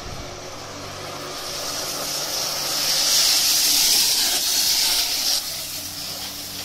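Spray nozzles of an automatic truck wheel-wash bay hissing as water jets fan across the bay. The hiss builds over the first couple of seconds and drops back sharply about five seconds in, over a steady low hum.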